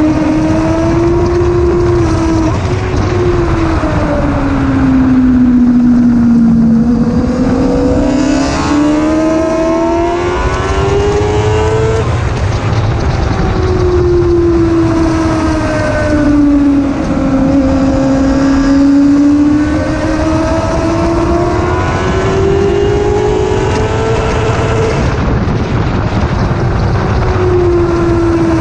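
Onboard engine of a litre-class sport motorcycle at track speed: its note sinks as the bike slows, then climbs steadily under acceleration, dropping suddenly at upshifts about twelve seconds in and again near the end. A dense rush of noise runs underneath.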